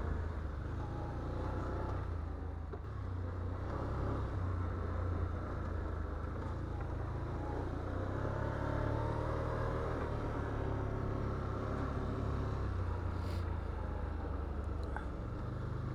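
Can-Am Outlander ATV's V-twin engine running at low trail speed, a steady low drone whose pitch shifts slightly as the throttle changes.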